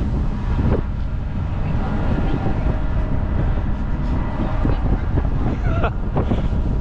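Steady low engine rumble with a droning hum, and a faint voice briefly near the end.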